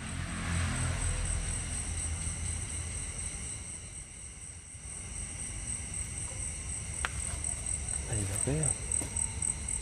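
Insects chirring in a steady, high-pitched, finely pulsing drone, with a low rumble in the first couple of seconds.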